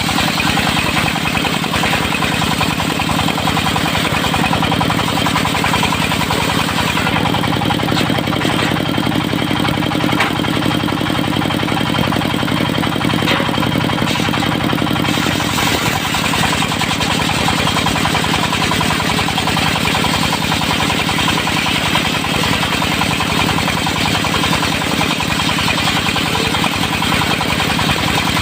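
Diesel engine of a mobile circular sawmill running steadily with a fast, even knocking beat; its tone shifts for several seconds in the middle.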